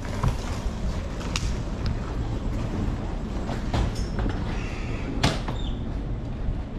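Inside a coach bus: a steady low engine rumble with a few sharp knocks and rattles, the loudest knock about five seconds in.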